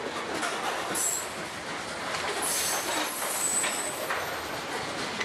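Freight train's covered hopper cars rolling past close by: a steady rumble and rattle of steel wheels on the rails, with a high metallic squeal about a second in and again for a second or so around the middle.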